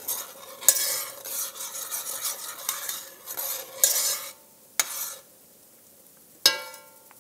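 Metal spoon stirring a thick sauce in an enamelled Dutch oven, scraping and clinking against the pot for about four seconds. Then a couple of light clicks, and one sharp, ringing clink of the metal spoon near the end.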